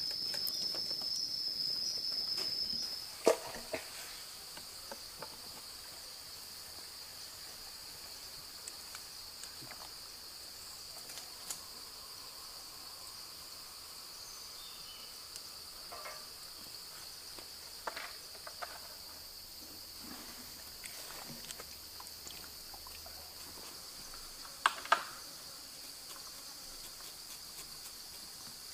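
Steady high-pitched drone of insects, louder for the first three seconds and then continuing more faintly. A few sharp knocks or taps stand out above it, one about three seconds in and two close together near the end.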